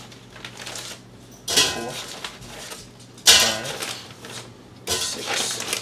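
Frozen chicken wings dropped one at a time into an air fryer's non-stick basket: three sharp knocks about a second and a half apart, with the crinkle of the plastic freezer bag.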